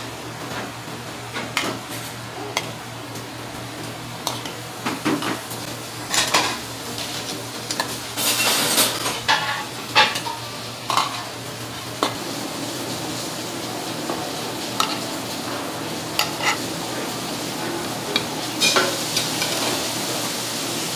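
Kitchen cooking sounds: metal utensils clinking and scraping against pans, with meat sizzling in a hot pan. About halfway through, the sizzle settles into a steadier, louder hiss.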